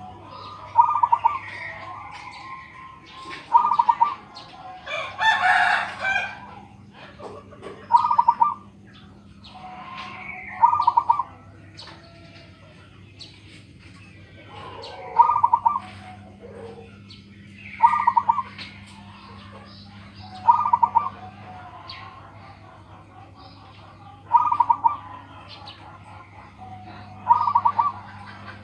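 Zebra dove (perkutut) cooing over and over, each coo a short rapid stutter repeated every two to three seconds. A rooster crows once about five seconds in, small birds chirp in between, and a steady low hum runs underneath.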